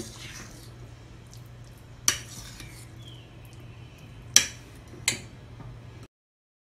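A metal fork stirring and scraping in a stainless steel bowl of guacamole, with three sharp clinks, the loudest a little past four seconds in. The sound cuts off abruptly about six seconds in.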